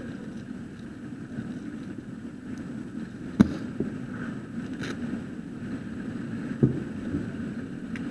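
Wind buffeting the microphone as a steady rumble, with two sharp knocks about three and a half seconds in and again past six seconds, and a fainter click in between.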